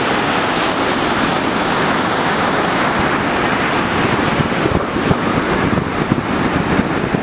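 Ocean surf breaking and washing up the beach in a steady rush. Wind buffets the microphone in uneven gusts during the second half.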